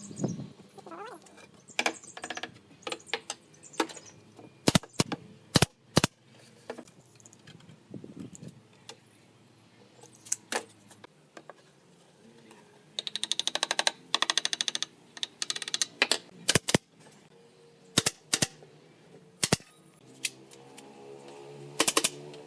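Scattered sharp knocks and clicks from woodworking, with a fast rattling run of clicks about two-thirds of the way through, over faint background music.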